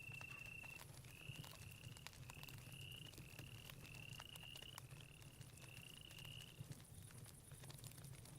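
Faint night-forest ambience: a single high steady call for under a second, then a run of short rising chirps at about two a second that stops near the end. Beneath it run a steady thin high insect buzz and scattered soft clicks.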